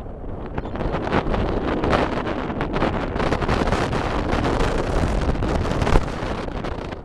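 Wind buffeting a bicycle-mounted camera's microphone while riding, a steady rushing roar with passing traffic beside the road. There is a short sharp knock near the end.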